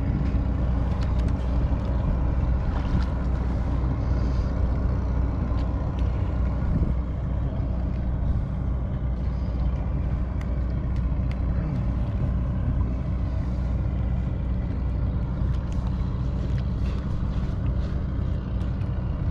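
Boat engine running steadily: a low, even hum that holds throughout.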